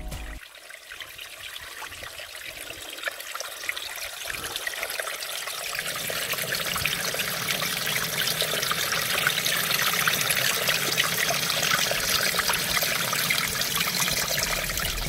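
Snowmelt water trickling and splashing among mossy granite stones in a small mountain stream, growing louder over the first few seconds and then running steadily.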